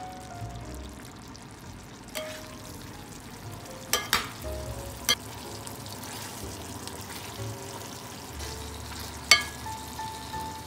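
Pork humba, braised pork belly in soy-and-sugar sauce, sizzling in a metal pan while a utensil stirs it, with about five sharp knocks of the utensil against the pan, the loudest near the end.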